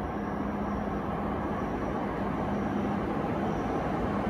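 Tohoku Shinkansen train approaching along the platform: a steady running noise with a low hum, slowly growing louder.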